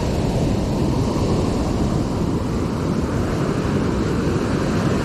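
Surf washing up a sandy beach, with wind rumbling on the microphone: a steady rushing noise.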